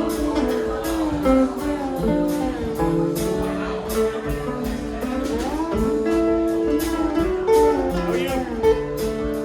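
Slide guitar playing melody lines that glide between notes, over a strummed acoustic guitar.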